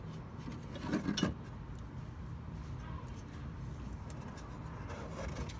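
Small scrapes, rubs and clicks of hands handling a voltage regulator and its wiring in a cramped engine compartment, with a brief cluster of louder clicks about a second in, over a steady low rumble.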